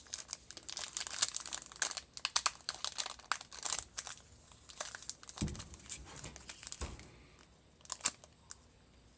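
Wrapper of a 2019-20 Mosaic basketball card pack crinkling and tearing as it is worked open, dense crackling for the first four seconds or so, then sparser rustles. A dull thump comes about five and a half seconds in.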